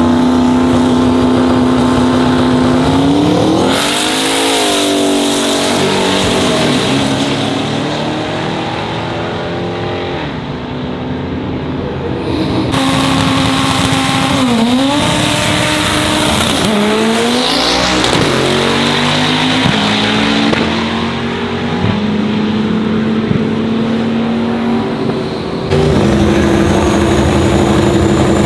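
Drag-race street car engines idling and revving, pitch rising and falling again and again, heard in several cuts from one car to another.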